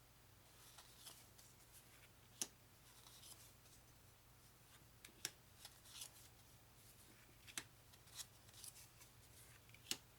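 Game cards being handled and sorted on a table: soft rustling with sharp card snaps or taps at irregular intervals, about six in all.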